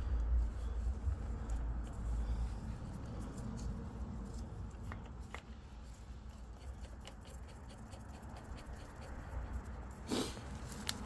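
Handling noise while a chain-tension gauge is worked by hand on a motorcycle's drive chain: a low rumble with a few faint small clicks, then a louder rustle near the end.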